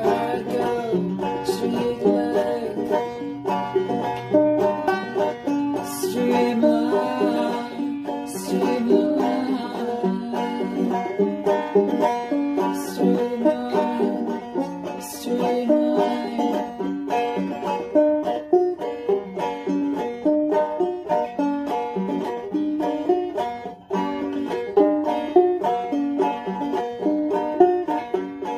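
A banjo played solo in a fast, continuous stream of plucked notes. A few sharp clicks sound in the first half, and a low steady drone sits under the notes for the first several seconds.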